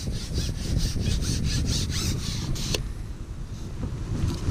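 Carbon fishing pole being pulled back across its roller and rest, a rhythmic rubbing rasp about five times a second that stops suddenly partway through, over wind rumble on the microphone.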